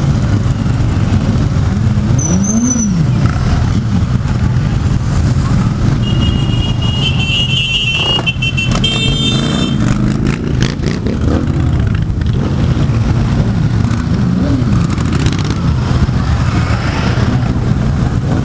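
A column of motorcycles riding past at low speed: a steady blend of engine rumble, with single bikes revving up and dropping back as they pass. A high-pitched tone sounds for about three seconds midway.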